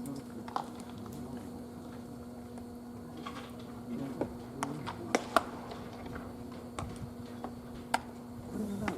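A steady low hum with a few scattered sharp pops; the loudest, two pops close together about five seconds in, fit a pitched baseball hitting the catcher's mitt.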